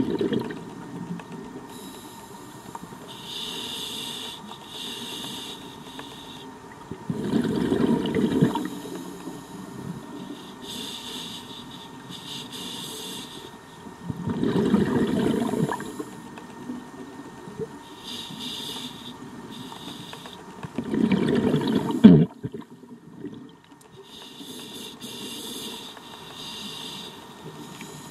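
Scuba diver breathing through a regulator underwater: a hiss on each inhale, then a low bubbling rush of exhaled bubbles, four breaths about seven seconds apart. A sharp knock comes at the end of the third exhale.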